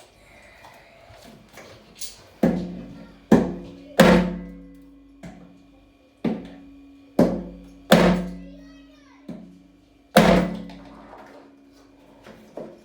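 Music with a deep, pitched percussion beat: single sharp drum-like hits, each ringing out low and dying away, spaced roughly a second apart.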